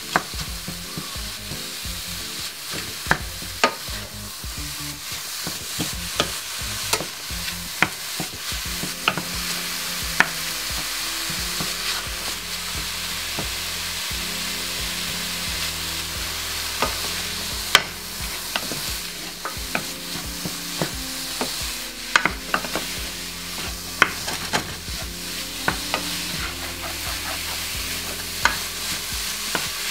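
Minced beef and onions sizzling as they brown in a stainless-steel pan, stirred with a wooden spoon that knocks sharply against the pan now and then.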